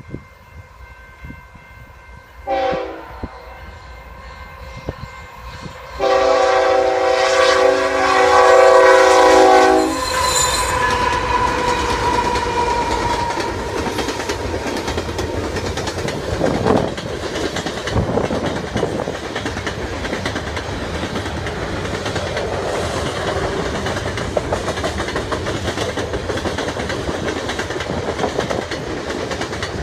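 Canadian Pacific GE ES44AC diesel locomotive sounding its air horn, a short blast and then a long one of about four seconds as it approaches, followed by the locomotives and a string of coal hopper cars rolling past with steady wheel clatter and rumble.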